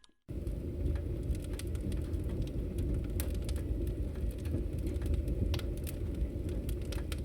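Wood fire crackling in a fireplace: a steady low rumble of flame with irregular sharp pops and snaps, starting abruptly just after a moment of silence.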